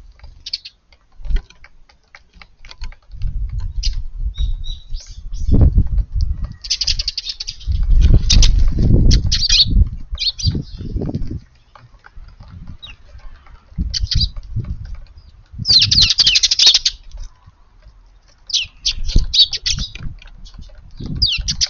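Eurasian tree sparrows chirping in busy, overlapping bursts of short chirps, with low thuds and flutters mixed in among them.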